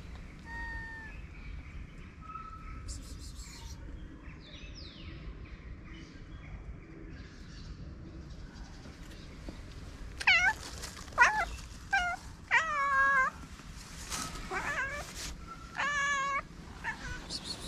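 A calico cat meowing. A couple of faint calls come first, then a string of about seven loud meows in the second half, each one bending up or down in pitch.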